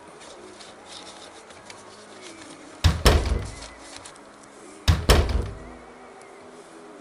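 Two heavy thumps about two seconds apart, each a quick double knock followed by a short low rumble.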